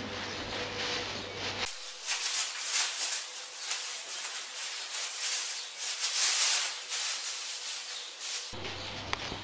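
Thin plastic bag crinkling and rustling as a kitten paws and tugs at it. The crackling is dense and high-pitched, starting after a couple of seconds and ending shortly before the end, over a low steady hum at the start and end.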